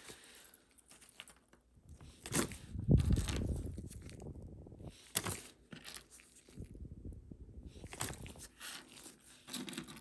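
Rustling and scattered light clicks from rhinestone earrings and their bag being handled, in irregular bursts.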